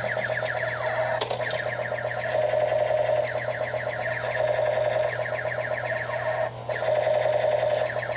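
Toy assault rifle's electronic firing sound effect: a rapid string of falling electronic chirps over a steady tone, cut off briefly about a second in and again near the end as the trigger is released and pressed again.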